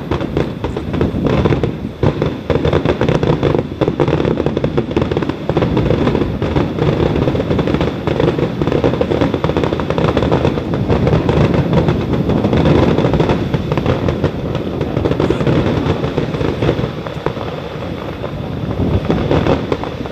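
Aerial fireworks going off in a dense barrage: many overlapping booms and crackles run together into a continuous loud rumble, which eases slightly near the end.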